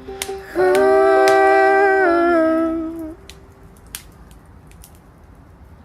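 A song's final held note, hummed or sung over a chord, sustained for about two seconds before fading out. After it, a softer bed of scattered sharp clicks and crackles remains, typical of a wood fire burning in a fireplace.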